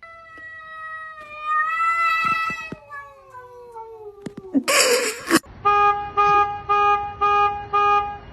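A cat yowling in one long drawn-out call that slowly falls in pitch, followed by a short loud rasping burst. After that come six short, identical beeps at a steady pitch, evenly spaced about twice a second.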